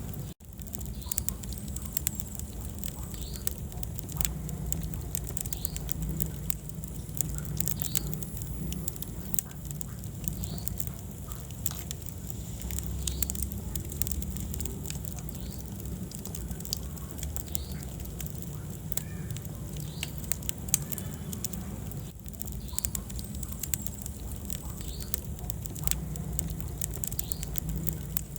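Wood fire burning in a fireplace: dense sharp crackles and pops over a steady low rumble of the flames, with a very brief dropout just after the start.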